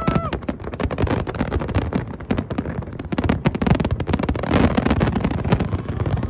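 Fireworks display: many shells bursting and crackling in rapid succession.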